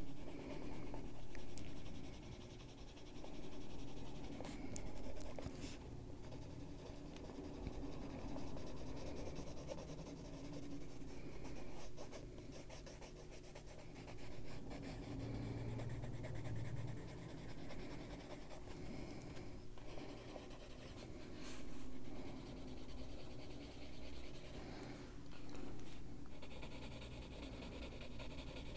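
Coloured pencil shading on a paper page, the strokes rubbing in short runs that swell and fade every second or two.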